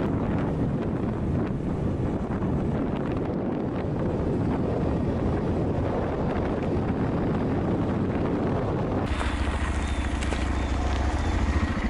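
Wind buffeting the microphone of a moving Honda Monkey 125, its 125 cc single-cylinder four-stroke engine running underneath. About nine seconds in, the wind drops away and the engine is heard plainly, running steadily at low revs.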